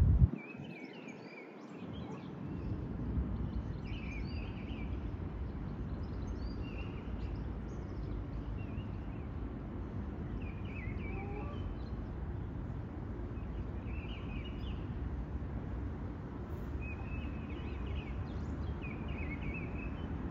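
Steady low outdoor rumble with high, short bird chirps in small clusters every second or two. A brief thump right at the start.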